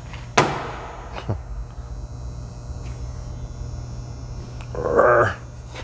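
A sharp clack, then a lighter click about a second later: a magnetic hanger snapping onto a steel tool cart, strong enough to pinch a finger. A steady electrical hum lies beneath.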